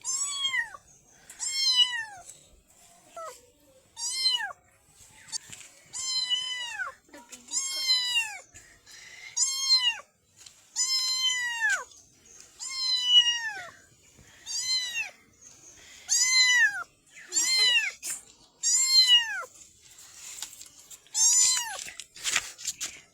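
Black kitten meowing over and over, a dozen or so short, high-pitched meows about one and a half seconds apart, each rising then falling in pitch.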